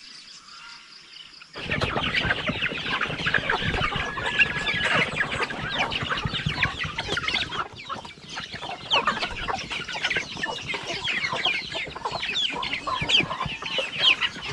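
A large flock of chickens clucking and peeping as they crowd in to feed, many short calls overlapping. It comes in suddenly about a second and a half in, after a quiet start.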